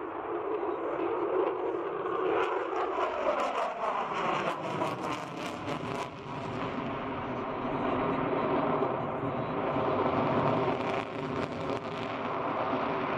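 Sukhoi Su-57 fighter jet's engines thundering through a display pass. A pitch falls as it goes by, about three to five seconds in, with harsh crackling around the middle.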